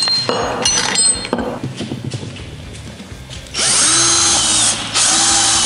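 A few light clicks and rattles of small plastic parts being handled, then a cordless drill boring a hole through a plastic bucket lid, starting about three and a half seconds in and running in two bursts with a short pause between.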